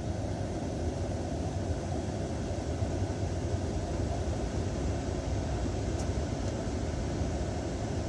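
Steady rumble of a 2015 Kia Carnival petrol running with its air conditioning on, with two faint, light clicks about six seconds in, half a second apart: the intermittent dashboard clicking that comes with the AC.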